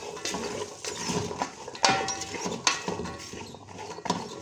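Cooking spoon clinking and scraping against a pot as vegetables are stirred while frying, with several sharp knocks at irregular intervals.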